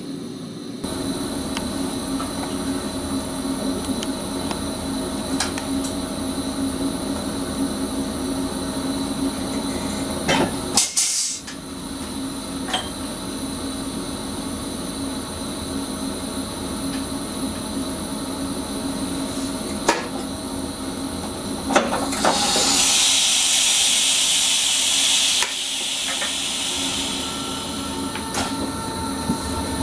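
Steady hum of an electric Sprinter commuter train's onboard equipment heard in the driver's cab, with scattered clicks. Compressed air hisses out twice: a short burst about a third of the way in and a longer hiss of about three seconds some three-quarters of the way through.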